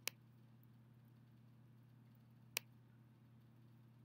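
Two short, sharp computer mouse clicks about two and a half seconds apart, against near silence with a faint steady low hum.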